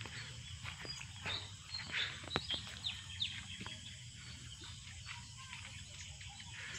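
Birds chirping and calling in short notes, with a few quick falling chirps around two to three seconds in, over a faint steady high-pitched insect drone and a steady low rumble.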